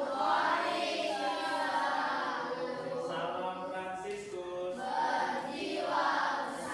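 A class of primary-school children singing together in unison, unaccompanied, in held, drawn-out notes.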